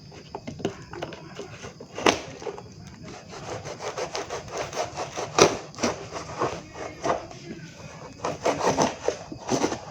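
Unboxing handling noise: repeated scraping and rubbing with scattered sharp knocks, the loudest about five and a half seconds in.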